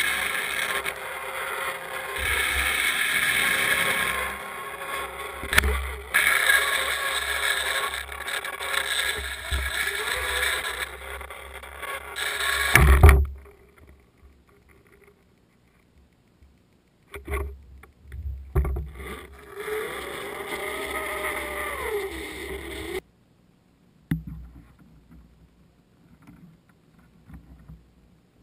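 Muffled rushing water noise and knocks picked up by a GoPro in its waterproof housing as it hangs underwater on a line. Around the middle it drops almost to silence, returns with knocks and a wavering tone for a few seconds, then cuts off suddenly.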